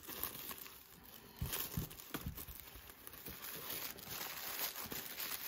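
Cotton drawstring pouch and its cardboard tag rustling and crinkling as hands untie the cord and open the bag, with a few knocks about a second and a half to two seconds in.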